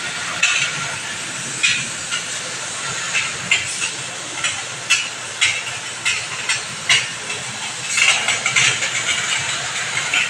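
Steady high hiss of a water spray jet washing an air-conditioner unit, with irregular sharper spurts about once or twice a second.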